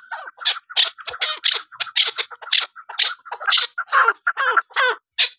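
Chukar partridge calling: a fast, steady run of short harsh chuck notes, about four to five a second.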